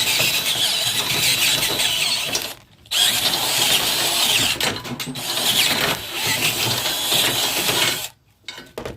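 Cordless drill boring out a hole with a large bit. It runs in two stretches with a short pause about two and a half seconds in, and stops near the end.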